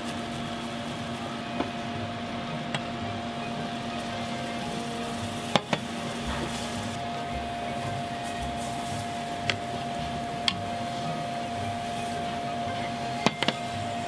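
A wooden spatula stirs a thick roux and milk in a stainless steel saucepan, knocking sharply against the pan now and then. Underneath runs a steady mechanical hum with two held tones.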